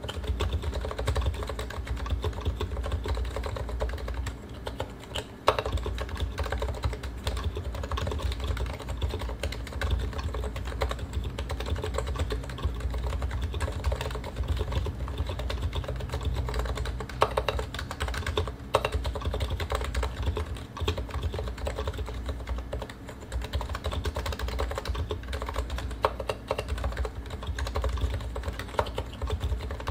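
Fast, continuous typing on a Realforce R2 PFU Limited keyboard with uniform 45 g Topre rubber-dome switches, purple silent sliders and stock PBT keycaps: a dense run of key presses with a couple of brief lulls.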